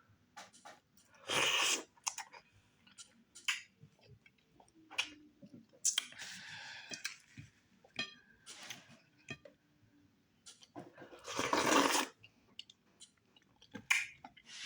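Close-miked eating sounds: okra stew and fufu being chewed with wet clicks and lip smacks, and three louder, longer sucking sounds spread through.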